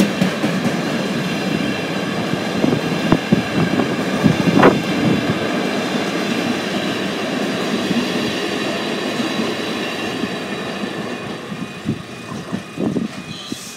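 Container freight train passing at close range: wagons rumbling and clattering on the rails, with a few sharp knocks and steady high tones over the top. The sound fades over the last few seconds as the end of the train goes by.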